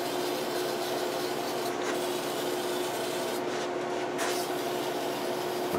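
Aerosol spray-paint can hissing as paint is sprayed onto wooden casting patterns, in long bursts with short breaks in between, over the steady hum of a fan.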